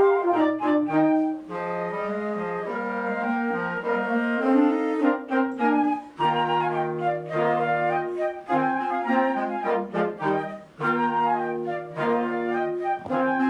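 Military wind band with woodwinds and brass playing a Christmas arrangement in held notes and full chords, with brief breaks between phrases.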